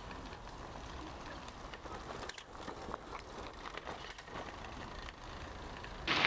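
Loaded touring bicycle (Surly Ogre with panniers) rolling along a gravel path: a steady tyre noise with a few faint clicks and rattles.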